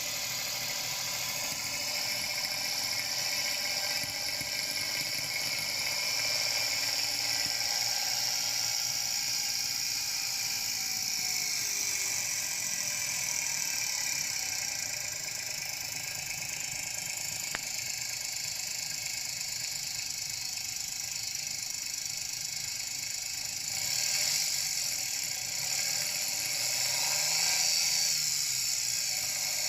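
Daihatsu Copen's KF-VET 658 cc turbocharged three-cylinder engine running, with a high-pitched tinkling "chiri-chiri" noise that the owner takes for engine knock. Its revs rise and fall again near the end.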